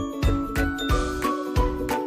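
Background music with a steady beat and a melody of short, high stepping notes.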